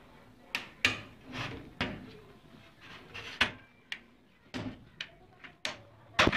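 Irregular hard plastic clicks and knocks, about ten of them, some with a short scrape, as keyboard parts are handled and pressed together.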